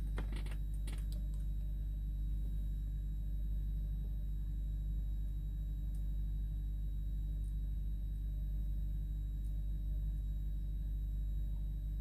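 A steady low hum, with a few faint clicks in the first second as the test light's bare wire ends are pressed against the plastic plug of the cigarette-lighter wiring.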